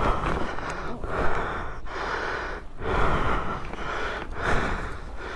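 A person breathing hard and fast close to the microphone: a run of heavy, noisy breaths, about one a second.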